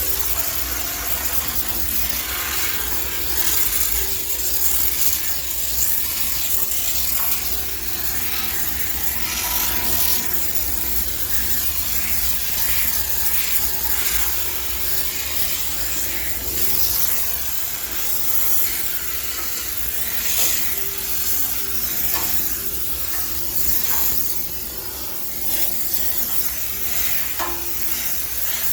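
High-pressure steam sterilizer hissing as its jet is worked over a washing machine, the hiss surging and easing unevenly, over a steady low hum.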